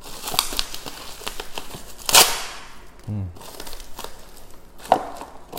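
Plastic packaging crinkling and rustling as it is handled, with scattered clicks and a louder rustle about two seconds in.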